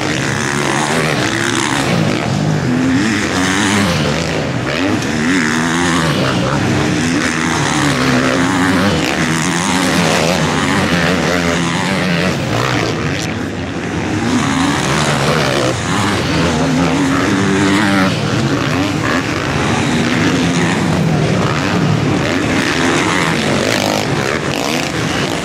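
Several motocross bikes racing together, their engines revving hard and overlapping, each pitch rising and falling as the riders work through the gears.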